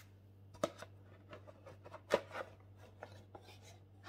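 Handling sounds as a boxed mug is unpacked: two sharp taps about a second and a half apart among lighter clicks and faint rubbing and scraping, over a low steady hum.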